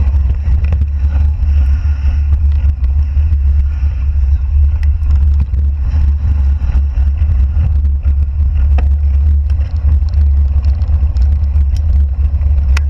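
Wind buffeting the camera microphone as a mountain bike descends fast over a wet gravel trail: a loud, steady low rumble with tyre noise, and scattered sharp clicks and rattles as the bike goes over bumps.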